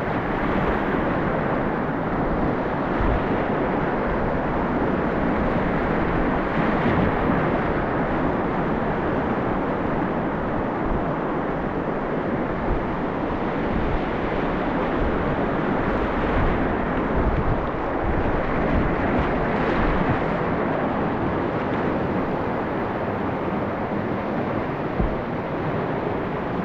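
Whitewater rapids of a mountain river rushing steadily and loudly.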